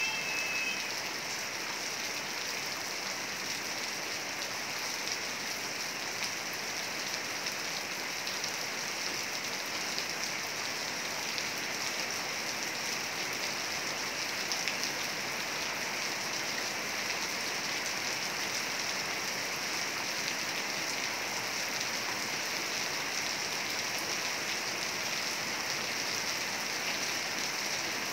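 Heavy rain falling steadily: an even, unbroken hiss of dense drops.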